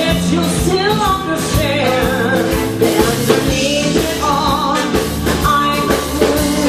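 A woman singing lead with a live rock-and-roll band: a wavering sung melody, including a held note with vibrato about four seconds in, over a steady bass line and regular drum beats.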